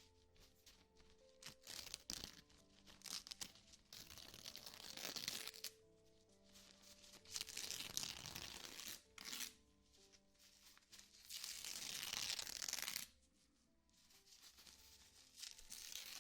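Soft ASMR rubbing and crinkling noises close to the microphone, coming in several swishing passes of a second or two each, over quiet ambient music of held notes.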